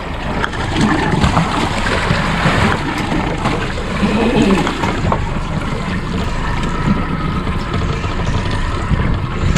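Water lapping and sloshing against the hull of a small drifting boat, with steady wind noise.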